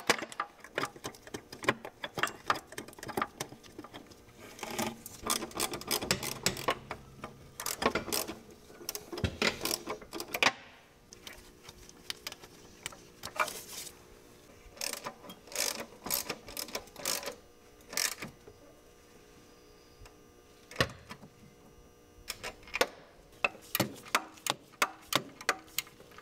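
Quick runs of clicking from a socket ratchet, with scattered clinks of metal parts, as the timing belt tensioner is bolted on.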